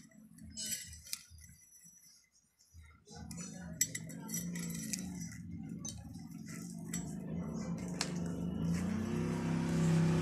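Light clicks and clinks of hand work on a stator winding. From about three seconds in, a motor vehicle's engine hum comes in with a slightly wavering pitch and grows louder toward the end.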